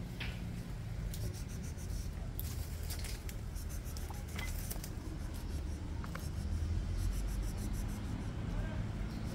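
A stray cat chewing and licking food off a plastic plate: quick runs of small, crisp clicks and scrapes. A steady low rumble runs underneath.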